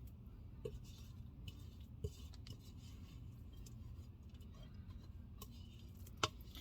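Faint clicks and light taps of kitchen utensils and containers being handled, with a sharper knock near the end, over a low steady background hum.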